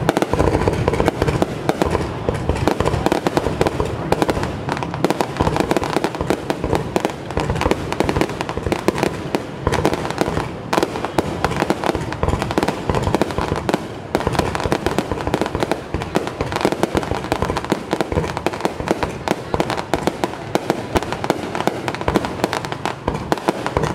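Fireworks display going off in a dense, unbroken barrage of bangs and crackling, many reports a second with no pause.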